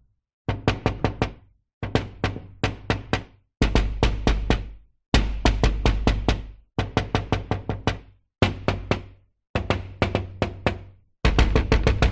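Knocking on a door in quick bursts of four to six knocks, about eight bursts with short silent pauses between them.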